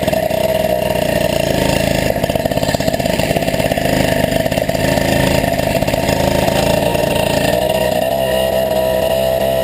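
Small two-stroke moped engine running steadily under way, held at an even pitch that sags slightly near the end.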